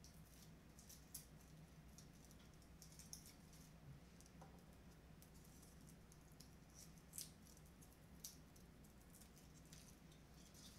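Faint, scattered crackles and rustles of dry, papery garlic skins being peeled off the cloves by hand.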